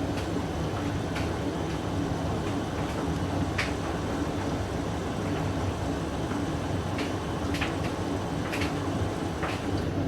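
Hoover DYN9144D3X washing machine, which has a Candy motor, running a quick wash on a load of blankets: a steady motor hum with the drum turning, and a few short swishes or clicks now and then.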